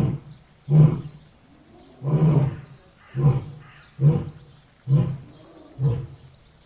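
Lion giving a series of short, deep grunting calls, about one a second, growing gradually fainter: the tail of a roaring bout.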